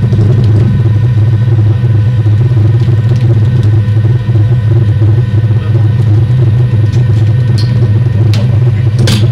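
Steady, loud, low mechanical rumble, with one short sharp click near the end.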